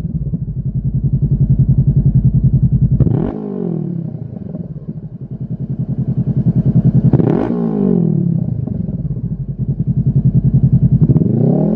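Honda CB500F's 471 cc parallel-twin engine idling through a carbon-fibre Lextek XP8C slip-on silencer. It is blipped twice, about three and seven seconds in, each time settling back to idle, and the revs begin to climb again near the end.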